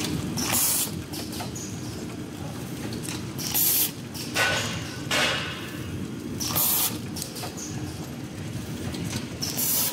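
Wet wipes packaging machine running with a steady hum. About six short hisses of compressed air cut through it at uneven intervals, one to three seconds apart, as its pneumatic cylinders cycle.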